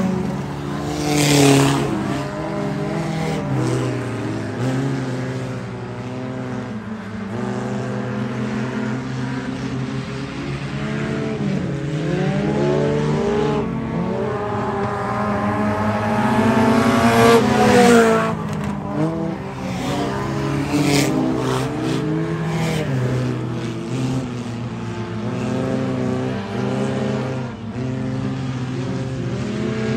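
Several stock-bodied race car engines on a dirt oval revving and backing off through the turns, their pitches rising and falling and overlapping as the cars pass close. The sound swells loudest about a second and a half in and again around seventeen seconds in.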